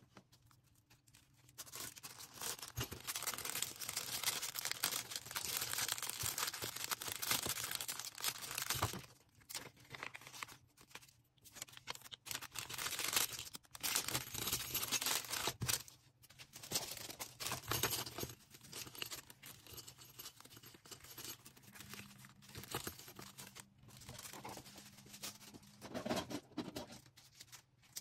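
Packaging being handled by hand: plastic bags and wrapping rustling and crinkling, with tearing sounds, in dense stretches broken by short pauses from about nine seconds in.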